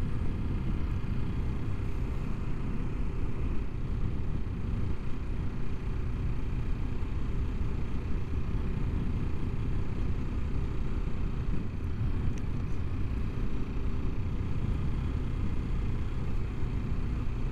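Kawasaki Ninja 650's parallel-twin engine running steadily while the bike cruises at about 40 km/h, heard as an even low rumble with no change in revs.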